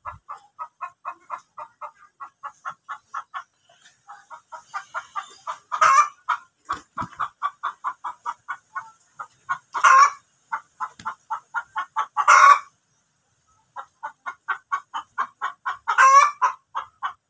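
A chicken clucking in a steady rapid run, three or four clucks a second, broken every few seconds by a louder, longer squawking call, four times in all.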